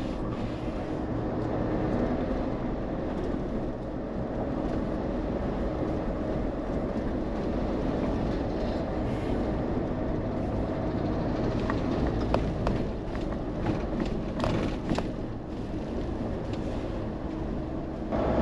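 Mahindra Thar running along a rough road: a steady engine and road noise, with a few sharp knocks and rattles about twelve to fifteen seconds in.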